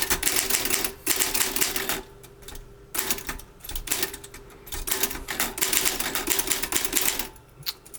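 Typewriter keys striking in quick runs of typing. There is a short pause about two seconds in, then a longer run that stops near the end.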